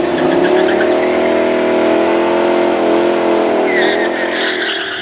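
A 2012 Mustang GT's 5.0 L Coyote V8 revs up and holds high, steady revs while the rear tyres spin in a burnout. Near the end the revs drop and a tyre squeal rises over it.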